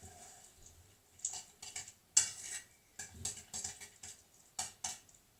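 A utensil stirring and scraping a cheese and herb mixture in a bowl, in irregular strokes with light clinks against the bowl.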